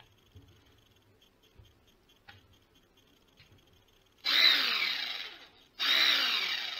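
Bosch jigsaw, converted to cordless with an 18-volt DC drill motor and a lithium-ion drill battery, run unloaded in two short bursts of about a second each, starting about four seconds in. Each burst starts suddenly, and the motor whine and blade clatter fall in pitch as the saw winds down off the trigger. Light handling clicks come before the bursts.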